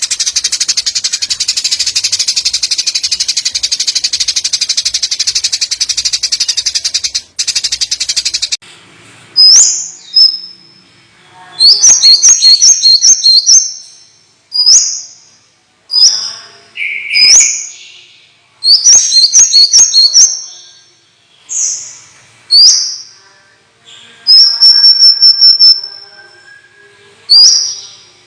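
Recorded songbird song: a dense, very rapid buzzing trill for the first eight or so seconds, then loud separate chirps and falling whistles, several in quick runs of four or five.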